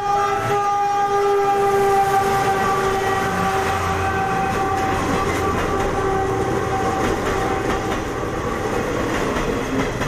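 Diesel locomotive's horn held on one steady chord as the train runs over a street crossing, fading out near the end. Under it the engine rumbles and the wheels clatter more loudly from about halfway through, as the coaches pass close by.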